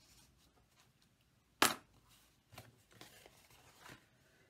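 Green cardstock being folded and handled along its score lines, with one sharp tap about one and a half seconds in and a few lighter taps and rustles after it.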